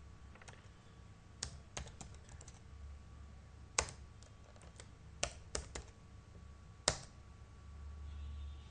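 Computer keyboard keystrokes as a short command is typed: scattered, irregular taps with a few sharper, louder clicks among them.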